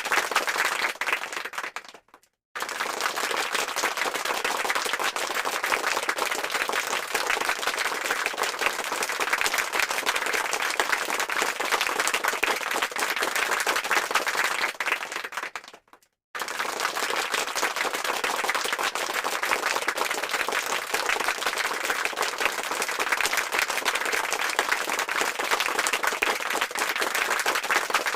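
Applause sound effect: a crowd clapping densely and steadily. It fades out briefly and starts again twice, as the effect loops.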